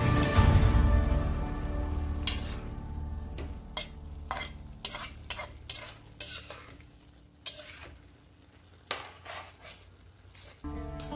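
A spatula scraping and stirring minced meat, mushrooms and peppers in a frying pan, a run of short scrapes. Background music fades out over the first two seconds and comes back near the end.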